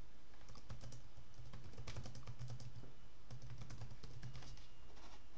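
Typing on a computer keyboard: runs of quick keystrokes with short pauses between words, over a low steady hum.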